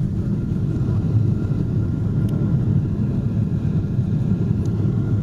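Steady low rumble inside the cabin of a Boeing 777-300 rolling out on the runway after touchdown with its spoilers raised, with a faint steady whine above it.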